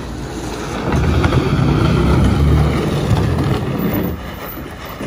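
Chevrolet Silverado pickup pulling away while towing an empty plastic kayak from its hitch, the hull dragging across concrete. A low rumble with a rough scraping haze, loudest for a few seconds in the middle, then dropping away about four seconds in as the truck and kayak move off.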